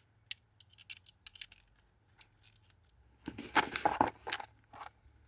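Ratchet wrench with a 5/16 socket clicking as it backs off a small nut on a fuel pump hanger: scattered single clicks, then a quick run of clicks about three and a half seconds in.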